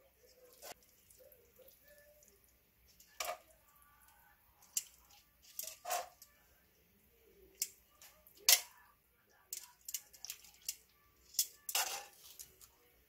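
Kitchen utensil clicking and clinking against a frying pan and ceramic plates while saucy noodles and small octopus are served, with a few soft wet plops; irregular single clicks, bunching up near the end.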